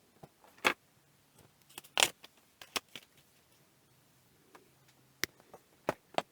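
Scattered sharp clicks and clatters of small hard objects being picked up and set down on a workbench, as the epoxy and mixing supplies are got out; the loudest come about half a second and two seconds in.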